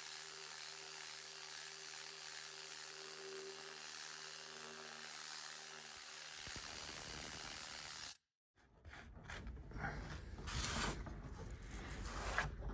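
Pneumatic needle scaler running steadily, its needles hammering rust scale off a steel plate. It cuts off about eight seconds in, and a few irregular knocks and clatter follow.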